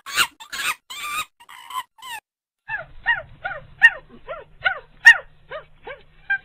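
Monkey chattering: a few screechy cries, a short pause, then a fast run of short, falling hoots, about three a second, over a faint steady hum.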